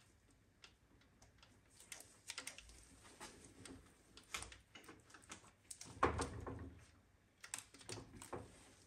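Scattered light clicks and taps, with one louder knock about six seconds in.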